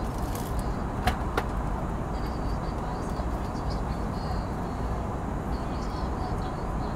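Steady cabin noise of an Airbus A320 in flight, the engine and airflow roar heard inside the cabin over the wing, with two short clicks about a second in.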